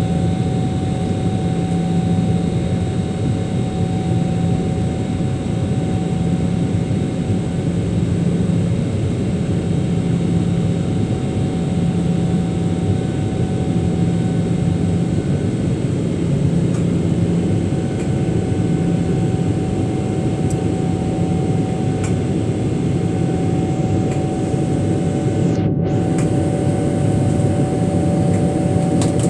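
Steady drone of an airliner's jet engines and rushing air, heard from inside the cabin after takeoff. A low hum swells and fades about every two seconds.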